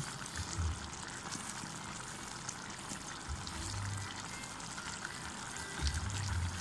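A pot of chicken stew with potatoes and carrots simmering, a steady faint bubbling and crackle as tomato sauce is squeezed in from a carton, with a few dull low thumps.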